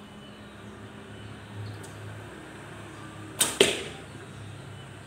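A 60-pound bow being shot: two sharp sounds a fifth of a second apart about three and a half seconds in, the second louder.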